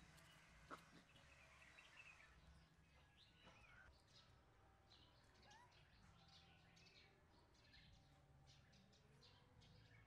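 Near silence with small birds chirping faintly in the background, the chirps coming thicker in the second half; a single faint click sounds about a second in.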